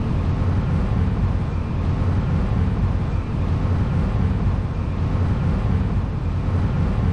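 Yanmar TF85 single-cylinder diesel engine of a two-wheel hand tractor running steadily under load while it drags a leveling harrow through flooded paddy mud.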